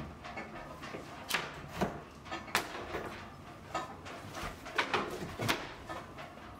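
Crowbar levering thin wooden panelling off a cupboard frame: a string of sharp cracks and splintering snaps as the brittle panel breaks away, with broken pieces dropping onto the shelf.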